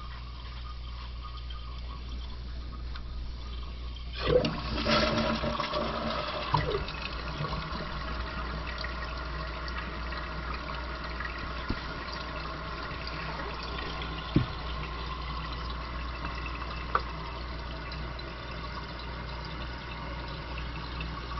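Toilet flushed about four seconds in: a sudden rush of water that settles into the tank refilling with a steady hiss from the fill valve. A few small knocks sound through the refill.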